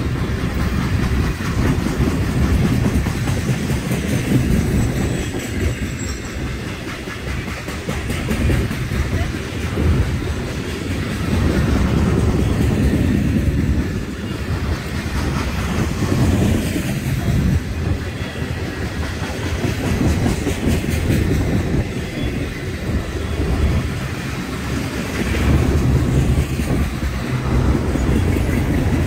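Freight train cars rolling past close by: steel wheels clicking in a steady clickety-clack over a heavy rumble that swells and eases as the cars go by.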